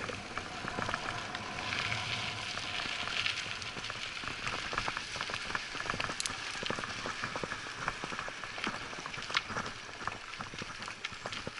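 Mountain bike tyres rolling over a gravel road: a steady crackle of small stones under the tyres, with scattered sharp clicks.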